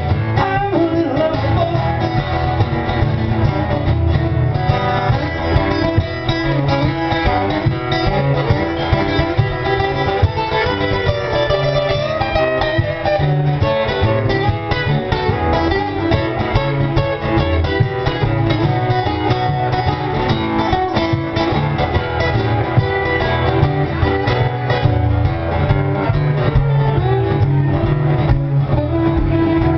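Live acoustic folk music: two acoustic guitars strumming a steady rhythm with a fiddle playing the tune.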